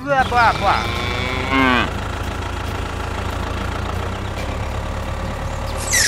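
A cow moos once, a long call that drops in pitch at the end, followed by a tractor engine idling steadily.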